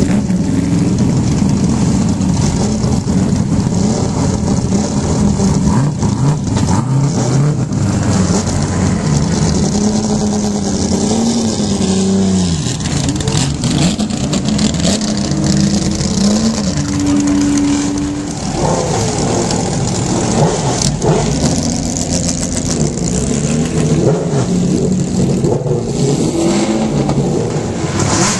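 Racing car engines idling and being blipped, the revs rising and falling again and again in a loud, continuous engine din.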